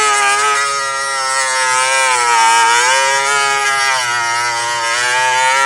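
High-speed Dremel rotary tool with a cut-off wheel grinding into a snap-off security bolt on a steering-column lock collar, cutting a slot into its head. It runs with a steady high whine whose pitch sags and recovers several times as the wheel is pressed into the metal.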